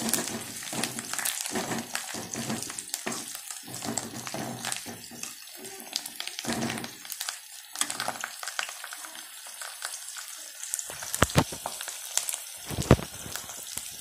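Shallots, dried red chillies and curry leaves sizzling in hot oil in an aluminium kadai while a metal ladle stirs them, scraping and clicking against the pan. Two sharp knocks stand out near the end.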